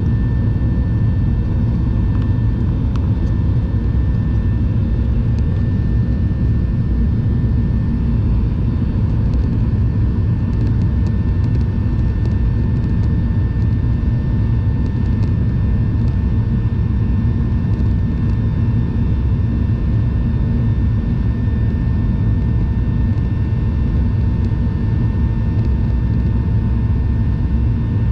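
Steady cabin noise of a jet airliner in flight: a constant low rumble of engines and airflow with a faint steady whine above it.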